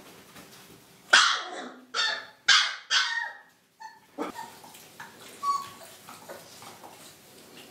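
Husky barking four times in quick succession, starting about a second in, followed by a few fainter, shorter calls.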